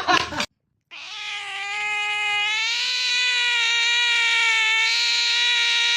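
A cat's single long, drawn-out yowl. It starts about a second in, rises slightly in pitch at first, then holds a steady tone.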